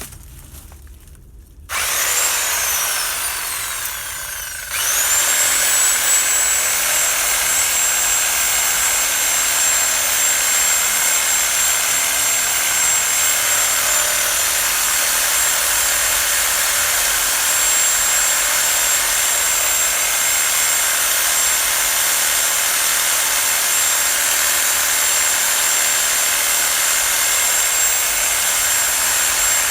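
Mains-powered Titan reciprocating saw cutting into bay tree wood, with a high whine. It starts about two seconds in, eases off briefly, then runs steadily at full speed through the cut.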